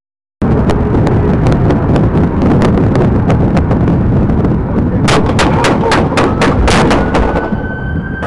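Rapid string of gunshots, a dense run of sharp cracks over about two and a half seconds in the second half, over the loud engine and road noise of a police cruiser in pursuit. The sound cuts in abruptly just after the start, and a police siren begins to wind up near the end.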